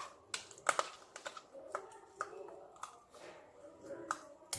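Light, irregular clicks and taps of small plastic pieces being handled, a few per second at first and sparser later.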